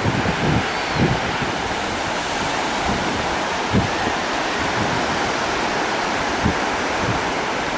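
Steady rushing noise of surf and wind at the shore, with a few short low buffets of wind on the microphone.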